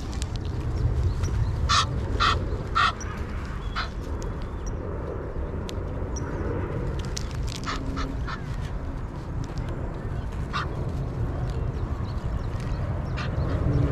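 Ducks quacking: a scatter of short calls, clustered about two seconds in and again around seven to eight seconds, over a steady low rumble.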